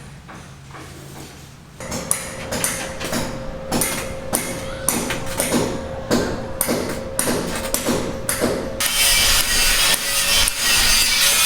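Regular knocks, about two a second, over a steady hum; about nine seconds in they give way to a continuous rasping noise, like a tool working wood.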